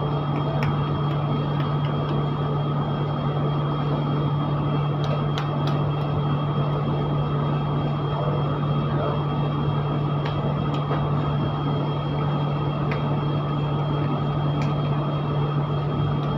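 Steady low drone of running kitchen machinery with a faint high whine. A few soft taps of hands patting dough patties on a steel table sound over it.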